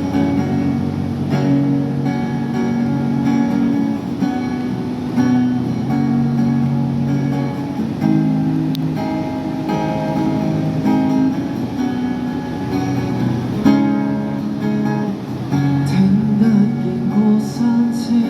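Guitar strummed in chords, changing every second or two: an instrumental break of a Cantopop song between sung lines.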